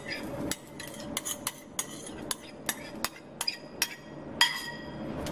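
A metal spoon tapping and scraping against a bowl and a steel pan as egg batter is scraped out and spread: a string of sharp clinks, one near the end ringing briefly.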